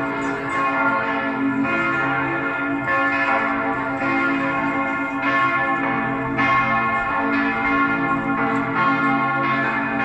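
Several church bells pealing together, fresh strikes coming every second or so over the ringing of the earlier ones, so the tones run on without a break.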